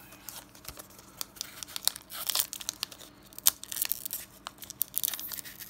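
Foil wrapper of a Pokémon TCG booster pack being crinkled and torn open by hand. A run of sharp crackles that grows busier about two seconds in.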